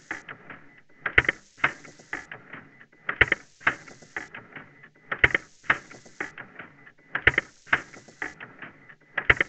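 Canon EOS Rebel DSLR's mirror and shutter mechanism, recorded and slowed to a tenth of its speed with the audible sound turned down, so that its ultrasonic noise can be heard. A thin steady high tone, which is the shutter motor's 20,000 Hz PWM drive as the owner assumes, and a hiss of static from 60 to 70 kHz come back with slowed clicks about every two seconds.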